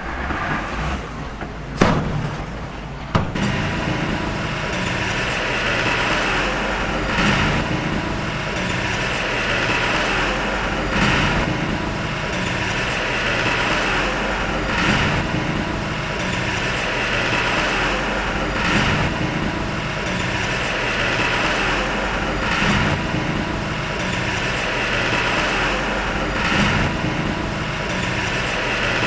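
Heavy earthmoving machine engine running steadily, swelling about every four seconds. Two sharp knocks come in the first few seconds.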